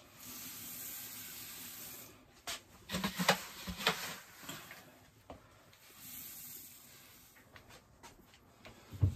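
Crushed malt poured from a scoop into a mash kettle during dough-in, a steady hissing rustle of falling grain, with the scoop scraping and digging into grain in a plastic bucket in between and a second pour after. A short thump near the end.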